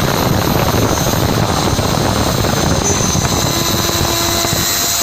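Three-axis CNC milling machine cutting: a steady high whine from the spindle over a dense, even cutting noise.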